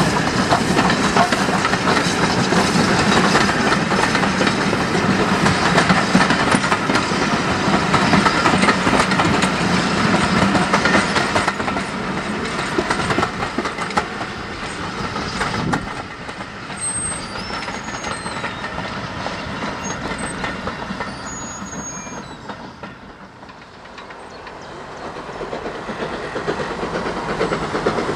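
BR Standard 4 class 2-6-4T steam tank engine and its coaches running past, wheels clickety-clacking over the rail joints. The sound fades after about twelve seconds as the last coaches draw away, birds chirp, and the sound dips and then builds again near the end.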